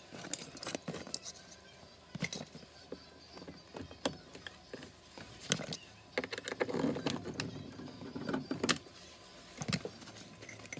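Irregular clicks, metal clinks and knocks of tools and metal parts being handled, busiest in the middle of the stretch.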